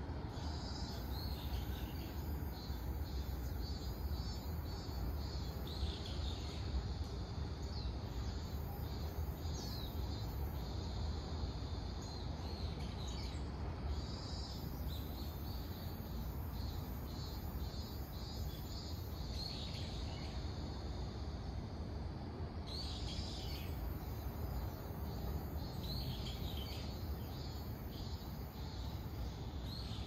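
Minmin cicadas (Hyalessa maculaticollis) singing in repeated pulsing phrases over and over. A higher steady insect buzz comes and goes, over a low steady rumble.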